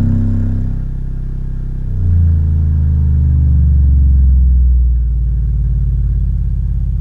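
Low bass test tone from a 6-inch speaker driven by a Miller & Kreisel V-2B subwoofer amplifier, stepped down in pitch toward about 15 Hz, the level starting to pulse near the end. The amplifier reproduces it cleanly, with no buzz, after its failed electrolytic capacitors were replaced.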